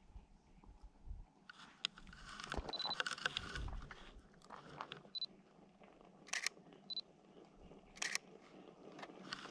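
Handheld Canon camera being raised and used to shoot: several short, high focus-confirmation beeps and two quick clusters of shutter clicks in the second half, over rustling handling noise.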